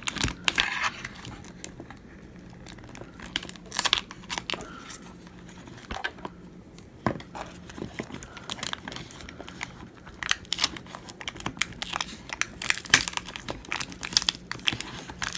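iPhone 7 Plus battery being pried and peeled free by hand from torn adhesive strips: irregular crinkling, tearing and clicking throughout. The pull-tab adhesive strips snapped, so the battery is being worked loose against the adhesive still stuck underneath.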